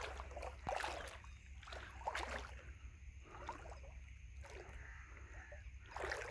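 Water sloshing and lapping against a small boat's hull as it moves on the river, with a few irregular splashes over a steady low rumble.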